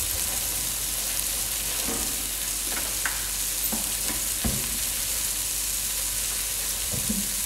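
Sliced onions frying in oil and a little butter in a large pan, sizzling steadily and quite fast: a bit too hot for softening rather than browning them. A few faint short knocks sound over the sizzle.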